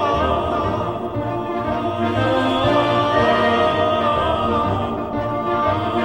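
Background music: classical orchestra with choir, voices holding long sung notes.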